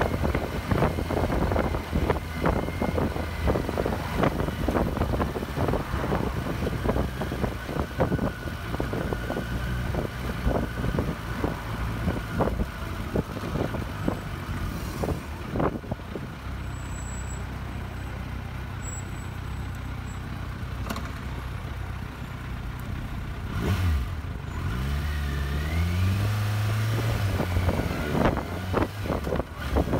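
Kawasaki Versys 1000's inline-four engine running at low road speed, with wind buffeting the microphone through the first half. Near the end the engine note rises as it picks up revs.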